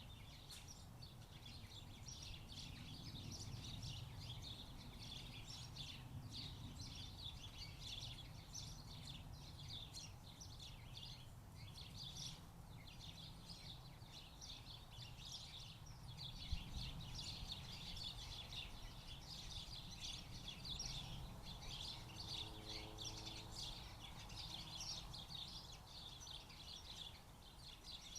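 Small birds chirping: many short, rapid calls running on without a break, faint, over a low steady rumble of background noise. A single brief knock about sixteen seconds in.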